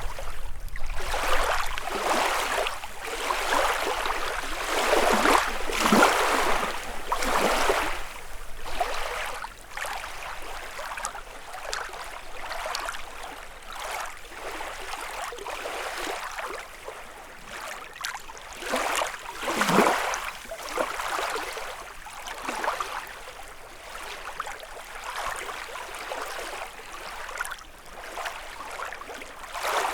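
Small lake waves lapping and splashing against the shore in irregular washes. They are busier and louder over the first several seconds, with one stronger splash about twenty seconds in.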